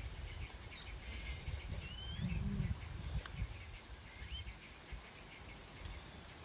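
Birds chirping in scattered short calls, two of them quick rising chirps, over a low rumble that swells about two and a half seconds in.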